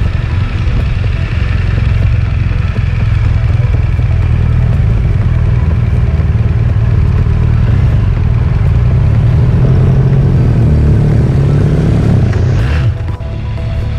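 Motorcycle running at riding speed, heard from on board as a loud, steady low rumble. Near the end the engine pitch climbs for a couple of seconds as it accelerates, then drops off suddenly before picking up again.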